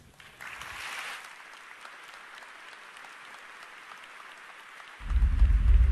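Audience applauding, swelling about a second in and then settling to a steadier, quieter clapping. Near the end a deep rumbling soundtrack starts suddenly.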